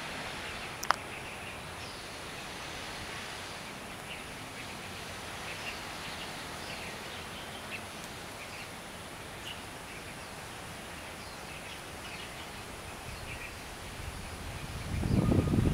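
Steady outdoor background noise with faint, short bird chirps scattered throughout and a single sharp click about a second in. Near the end a loud, uneven low rumble comes up on the microphone.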